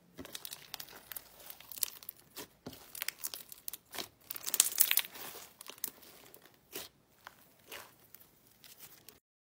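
Fluffy blue-and-white slime being squeezed, stretched and pulled apart by hand, giving a dense, irregular crackling and sticky tearing. It cuts off abruptly just before the end.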